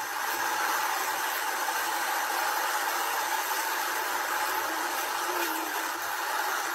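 Steady hiss of street traffic: car tyres running on a wet road.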